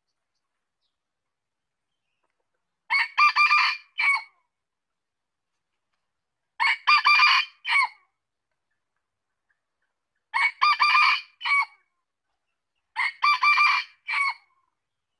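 Male red junglefowl crowing four times, about every three and a half seconds. Each crow is short and broken into several quick notes with a separate clipped last note.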